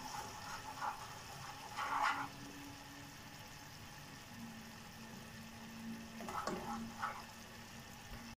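Sugar syrup bubbling faintly in a saucepan as it cooks toward caramel, with a wooden spatula stirring and scraping the pan a few times.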